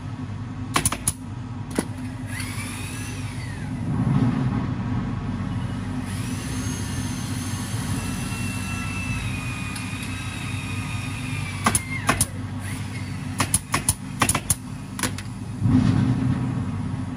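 Pneumatic upholstery staple gun firing single sharp shots into a fabric-covered sofa cushion: a few shots near the start, then a quick cluster of about eight near the end, over a steady low hum.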